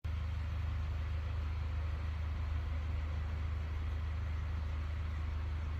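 A steady low hum with a faint hiss over it, unchanging throughout, like a motor or engine running in the background.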